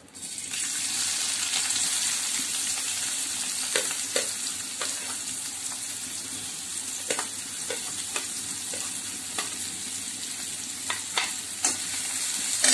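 Sliced onions and curry leaves hitting hot oil in a metal kadai and sizzling: the sizzle starts suddenly about half a second in and keeps going steadily. A metal slotted spoon clicks and scrapes against the pan now and then as the onions are stirred.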